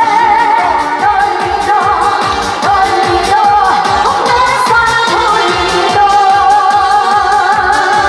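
A woman singing a disco medley live with long held, wavering notes over a steady dance beat, with a janggu drum team playing along.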